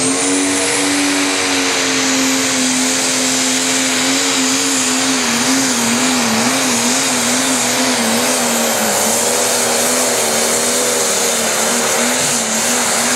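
Valtra Pro Stock pulling tractor's turbocharged diesel engine running flat out under load as it drags the weight-transfer sled. A high whistle climbs over the first second and then holds, and the engine note wavers in pitch as the pull goes on.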